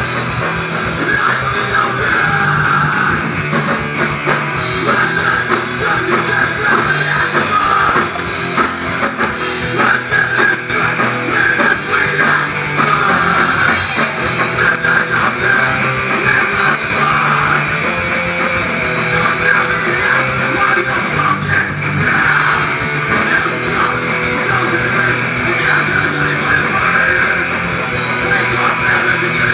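A live rock band playing loud: distorted electric guitars over a drum kit.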